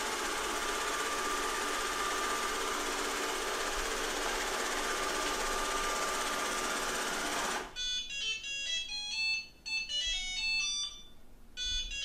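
Shark Ion robot vacuum running steadily with a faint thin whine as it drives to its charging dock, its motors cutting off abruptly about eight seconds in. Then comes a run of short electronic beeps at changing pitches, in groups with brief gaps, as the robot docks with its battery nearly drained.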